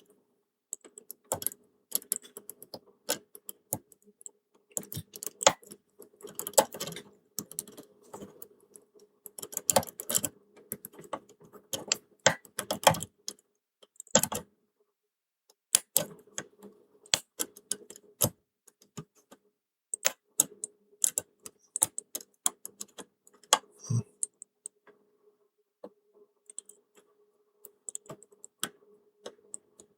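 Small irregular metallic clicks and taps of a lock pick and tensioner working the levers inside a Belfry pipe-key lever padlock during picking.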